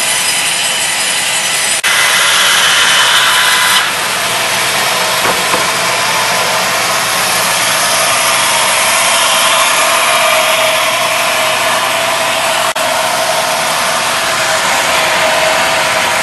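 Raimann woodworking saw machine running with a loud, steady mechanical whine and hiss, louder for about two seconds near the start.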